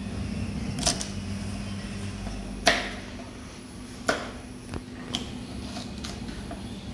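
Chef's knife cutting green beans and carrots on a plastic cutting board: a handful of separate sharp knocks, the loudest a little under three seconds in, over a steady low hum.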